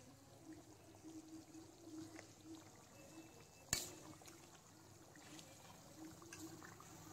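Faint, quiet stirring of thick curry gravy with a steel ladle in a metal kadhai, with a single sharp clink a little past halfway through.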